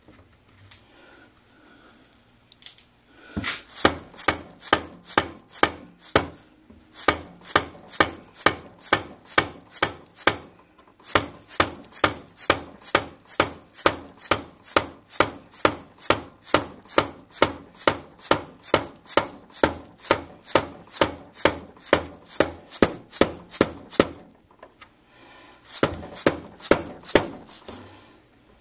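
Atlas 618 lathe's carriage being slid back along the bed, with an even metallic clicking about three times a second from the carriage mechanism. The clicking breaks off briefly near the middle and again shortly before the end.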